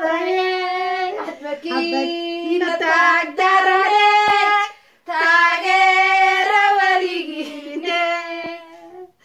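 A child singing in a high voice with long held notes, breaking off briefly about five seconds in.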